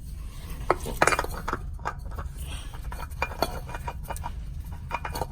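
Irregular light metallic clicks and clinks of hand work as a new spin-on oil filter is put onto its mount under the car, over a steady low hum.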